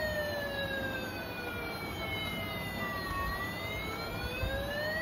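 Battery-operated toy fire truck's electronic siren wailing, its pitch gliding slowly down for about three seconds and then back up.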